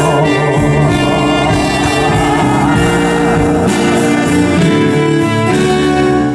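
Instrumental passage of a song's live accompaniment with no singing: sustained chords and a wavering melody line.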